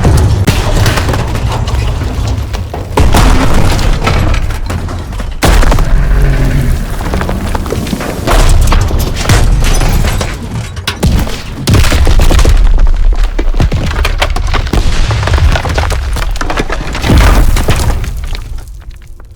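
Video-game war sound effects: a series of heavy explosions every few seconds, each trailing into a low rumble with breaking debris, over music.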